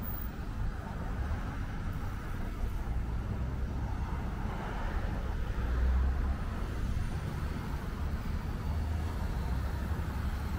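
Road traffic: cars passing on the street, a steady low rumble that swells loudest about six seconds in as one goes by.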